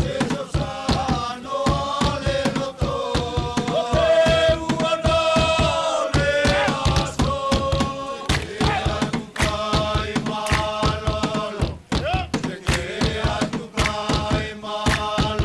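A group of voices singing a chant-like Futunan mako dance song together, holding long notes, over a fast, steady beat of percussion.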